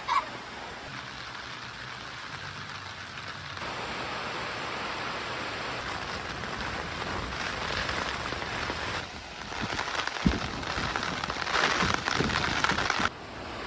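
Heavy rain falling in a steady hiss, its level jumping abruptly a few times, with a single knock about ten seconds in.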